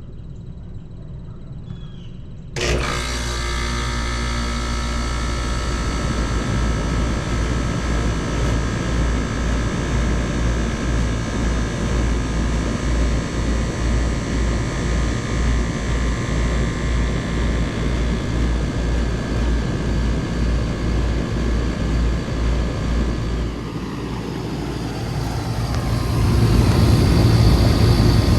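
Bard wall-mount air conditioning units running in cool mode: a steady machine hum from fans and compressor, with several fixed tones and a pulsing low drone. The sound jumps abruptly to a fuller, louder hum about two and a half seconds in. It dips briefly near the end, then comes back as a louder low rumble.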